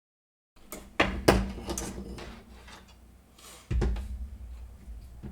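Sharp knocks and small clicks of screws, a tool and the motor being handled against a 3D-printed plastic motor mount as the motor is screwed on. The loudest knocks come about a second in, with another near the end.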